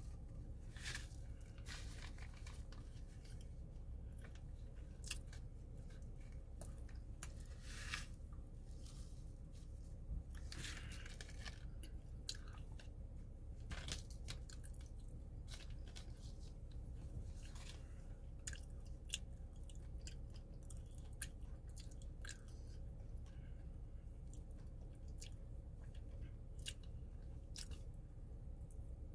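Crunchy food being bitten and chewed close to the microphone: irregular sharp crunches scattered throughout, over a steady low hum.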